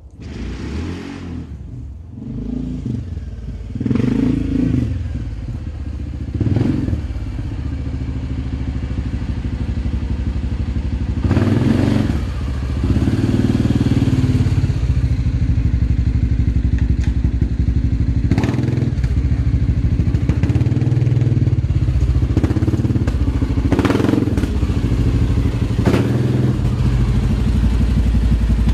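Suzuki KingQuad 700 ATV's single-cylinder four-stroke engine running, getting louder as it approaches over the first dozen seconds with several short revs, then running steadily close by.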